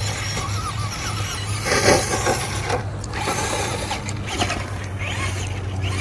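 Electric motor and drivetrain of a Traxxas Stampede RC truck whining, rising and falling in pitch as the throttle is worked, with a louder rough burst of noise about two seconds in.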